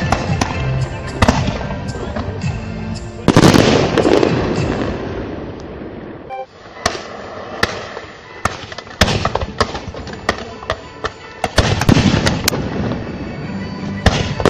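Fireworks display: a dense loud burst of shell explosions about three seconds in, then a run of separate sharp bangs and cracks, and another dense stretch of bursts near the end, with music playing underneath.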